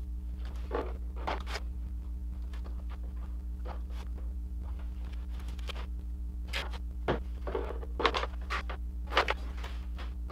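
Light hand-handling noises from work on the kayak's coaming: scattered small clicks, taps and scrapes, with a few sharper knocks in the second half, over a steady electrical hum.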